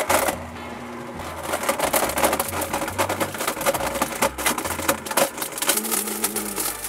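Blendtec Total Blender running with a load of CDs, ice, toy cars, a donut and a banana peel, the hard pieces clattering and rattling against the jar as they are smashed. The clatter eases off right at the end. A low music bass line plays underneath.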